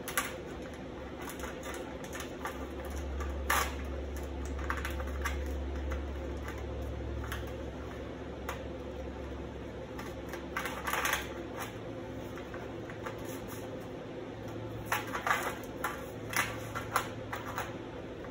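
Steel chain links clicking and shifting against each other and the steel sheet as they are handled, in scattered small clicks that bunch up near the middle and again late on. A low steady hum runs underneath.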